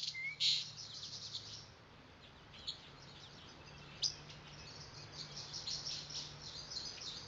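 Small songbirds chirping and twittering in a forest, many short high calls one after another, busiest in the first second and again near the end, over a faint steady low hum.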